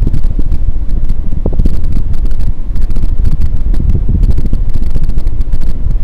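CEC Spinner ceiling fan running, its airflow buffeting the microphone in a loud, fluttering low rumble, with faint scattered clicks.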